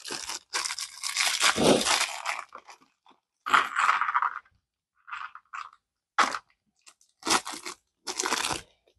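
Small clear plastic Lego parts bag crinkling and tearing as it is opened and handled. The rustling comes in bursts: a long one over the first two seconds or so, then several shorter ones.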